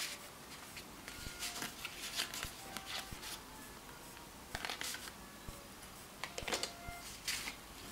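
Paper and card tags being handled: irregular soft rustling with small clicks and taps as they are turned over in the hands.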